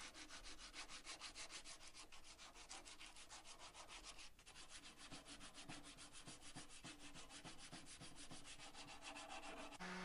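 Sandpaper wrapped around a brush handle being rubbed by hand inside the curve of a pine handle: faint, quick and regular back-and-forth sanding strokes.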